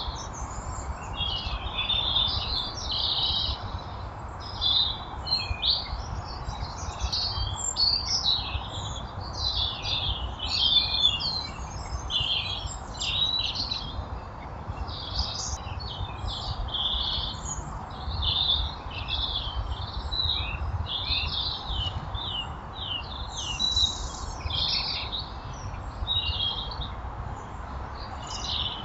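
Small garden birds chirping and twittering without pause: a dense, overlapping chatter of short high calls, over a low steady rumble.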